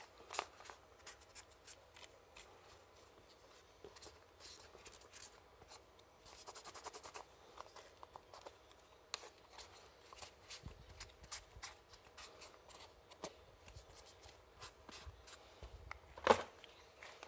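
Faint rubbing and scraping of a cloth wiping down a plastic RC servo tray and receiver box, with scattered small clicks of handling and one louder knock near the end.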